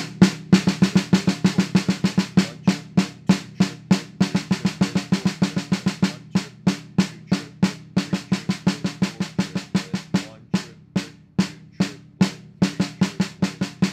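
Snare drum played with sticks: a steady stream of triplet strokes mixing single strokes with double strokes, in a double-stroke practice exercise.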